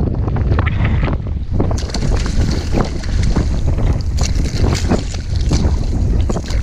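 A hooked fish thrashing and splashing at the water's surface in a quick irregular series as it is netted, over heavy wind buffeting on the microphone.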